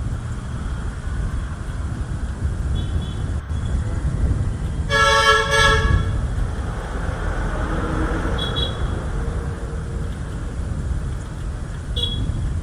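A vehicle horn sounds two short toots about five seconds in, over a steady low traffic rumble.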